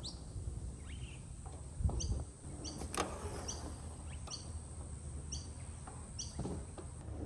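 Hardtail mountain bike riding over dirt: a low rumble of tyres and wind, with a couple of knocks from the trail. A short, high, falling chirp repeats about every half second to a second throughout.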